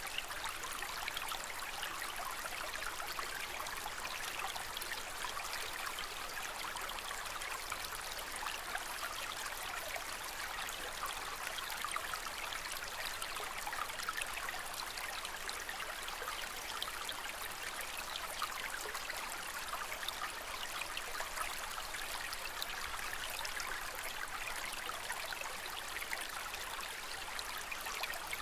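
Aquarium water trickling steadily, a continuous fine patter of moving water.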